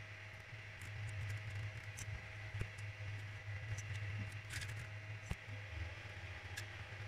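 Steady low hum of a powered-on 3D printer, with a few scattered light clicks and taps as filament is pushed by hand through its spring-loaded Creality metal extruder.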